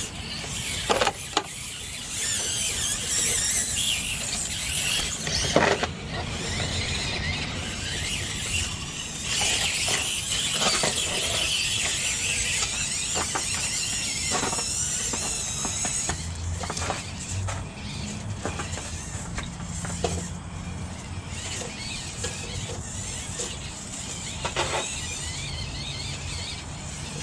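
Micro 1/24-scale RC rock crawlers' electric motors and gearing whining high and wavering as the trucks crawl over rocks, with a few sharp knocks of tyres and chassis on stone. The whine grows fainter after about halfway.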